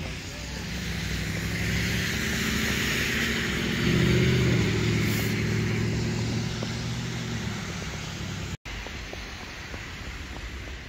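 A motor vehicle passing on a nearby street: its engine hum and tyre noise swell over a few seconds, are loudest about four seconds in, then fade. Near the end the sound cuts off abruptly and gives way to a quieter, steady background hum.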